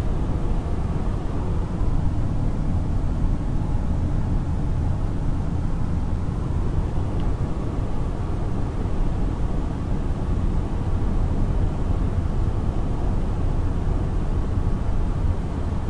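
Steady low rumble of a car, heard from inside the cabin, with no distinct events.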